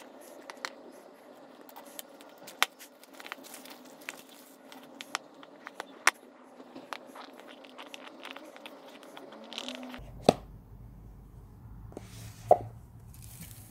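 Cardboard packaging of an Apple AirPods box being opened by hand: a run of small tearing, crackling and scraping sounds as the seal is slit and the tear strips are pulled. This is followed by two sharper knocks, about ten seconds in and again near the end, as the box parts are handled.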